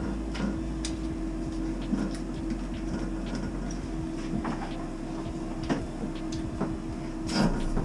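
Scattered clicks and knocks of a hose valve adapter and hose end being handled and fitted at a shower arm, over a steady hum; the loudest clack comes near the end.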